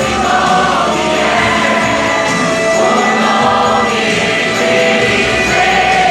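Choir singing a gospel worship song with band accompaniment, the voices holding long notes.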